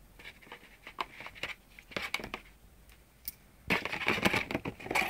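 Unboxing packaging being handled: scattered crinkles and scrapes, then a louder stretch of dense rustling and crinkling from near four seconds in as the box's contents are pulled out.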